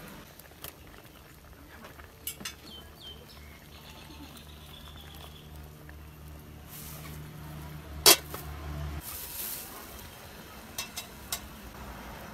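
Metal ladle stirring in a steel cooking pot of boiling vegetable soup, knocking against it: a few light clinks, one sharp clink about eight seconds in, and more light clinks near the end. A low steady hum runs underneath and stops about nine seconds in.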